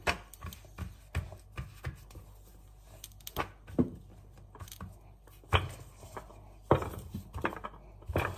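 Hands patting and slapping a ball of onion-and-green-chilli roti dough flat on a floured surface: a string of irregular soft slaps, with a few louder ones in the second half.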